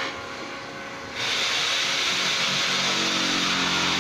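A loud, steady hiss with a motor's hum starts suddenly about a second in and keeps running, a low droning tone joining it soon after.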